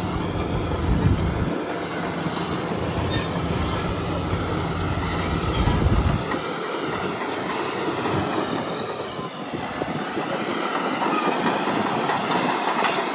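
Caterpillar D6N LGP crawler dozer moving on its steel tracks: the undercarriage squeals and clanks over the running diesel engine. The engine's low rumble drops away about six seconds in, leaving mostly the track squeal.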